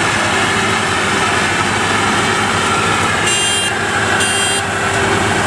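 WD102 Pro rice combine harvester running steadily under load while cutting heavy, tall rice, its engine straining hard. Two short high-pitched electronic beeps, about a second apart, sound a little past the middle.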